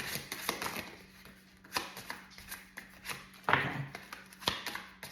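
Tarot cards being handled and shuffled by hand: scattered soft slaps and clicks as the slippery cards slide and are laid down, with a few sharper ones near the middle and toward the end.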